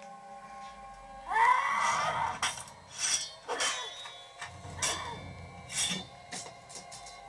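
Movie sound effects from a home surround-sound system, heard in the room: a run of sharp metallic clinks and hits. The loudest is about a second and a half in, with a short ringing tone, followed by several quicker strikes.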